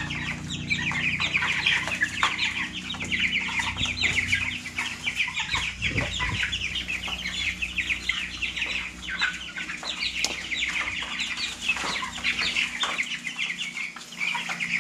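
A brood of roughly three-week-old chicks, mostly Cornish Cross broilers, peeping nonstop: many short, high, overlapping peeps.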